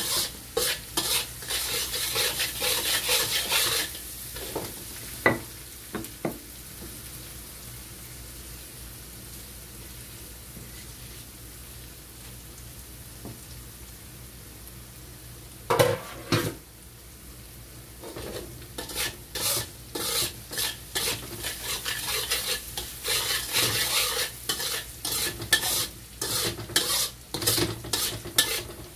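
Spatula scraping and stirring chopped shallots and garlic as they sizzle in oil in a wok, being sautéed until fragrant and golden. The strokes come thick and fast at the start and again from about two-thirds of the way through. In the quieter stretch between, a steady sizzle goes on with a few single knocks.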